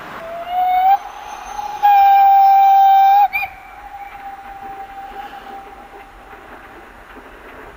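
Steam locomotive whistle, its pitch rising slightly as it opens, then a long loud blast of about a second and a half that cuts off sharply. A faint trace of the tone lingers afterwards, over the running noise of the train.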